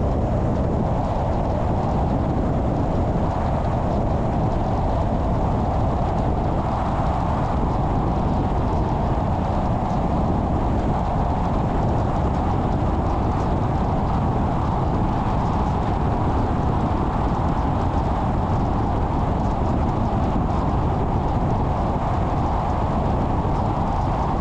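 Steady running noise of a car on the road, engine and tyre noise holding an even level throughout.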